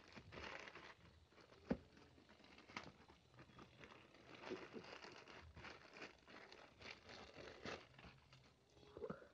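Plastic courier mailer bag rustling and crinkling as hands pull a small cardboard box out of it, with one sharp knock about two seconds in.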